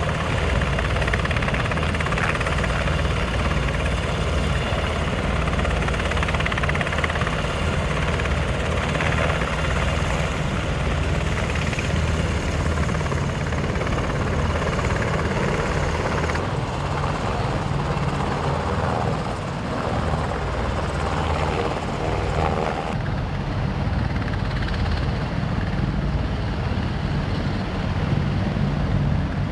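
AH-64 Apache attack helicopters running: their turboshaft engines and rotors make a steady, loud rumble. The upper part of the sound drops away abruptly about halfway through and again later on.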